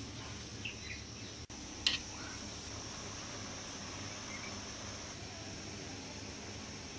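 Crickets chirping steadily in a continuous high-pitched drone, with one sharp click about two seconds in.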